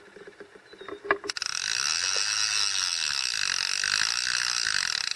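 Fishing reel's ratchet clicking rapidly as a fish takes line off it on a bite. It starts with a sharp click about a second in, becomes a fast, even rattle, and cuts off suddenly at the end.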